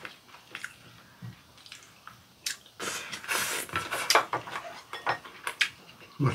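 Close-up eating sounds: spoon and chopsticks clicking against ceramic bowls, with wet chewing and slurping of soup for about a second and a half near the middle.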